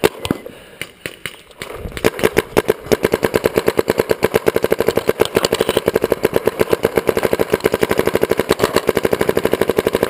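Proto Reflex Rail paintball marker firing: a few single shots, then from about two seconds in a loud, rapid, continuous string of shots, roughly ten a second.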